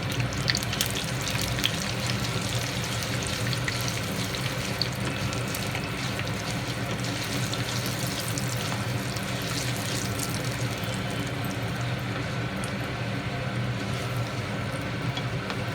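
Tempering frying in hot oil: mustard and cumin seeds, split lentils, curry leaves and dried red chilli pieces sizzling steadily, with scattered small pops and crackles.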